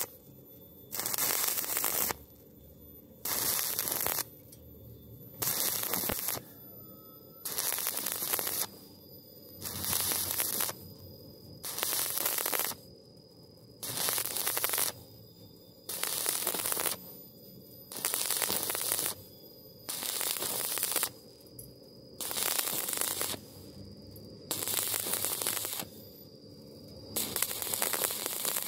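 Stick-welding arc from a 2.6 mm E6013 rod crackling on steel tube, in bursts about a second long that recur roughly every two seconds: the arc is struck and broken over and over, laying the bead in short stitches.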